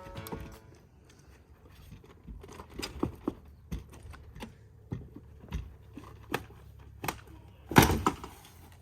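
Scattered knocks, clicks and scrapes of a crawl-space access cover being worked loose and lifted away, with one louder clattering knock near the end.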